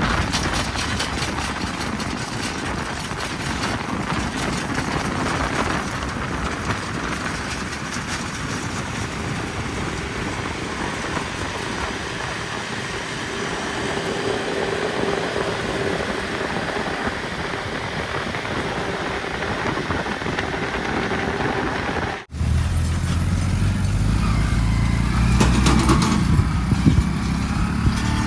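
Heavy diesel machinery running and working. About 22 seconds in, a sudden cut brings a deeper engine note, which grows louder towards the end.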